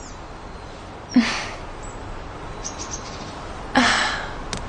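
Two breathy sighs, about a second in and near the end, each starting with a short voiced onset and trailing off, over a faint steady outdoor ambience with a few short bird chirps.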